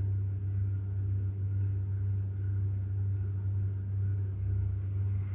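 A steady low hum that holds level throughout, with a faint haze of noise above it.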